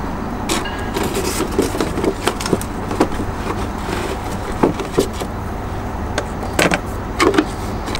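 Clear plastic packaging crinkling and clicking in the hands as a small part is unwrapped: irregular crackles and taps, a few sharper ones near the end, over a steady low rumble.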